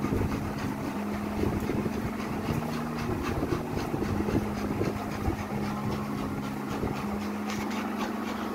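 Electric ceiling fan running with a steady low hum, overlaid by irregular rustling and light knocks.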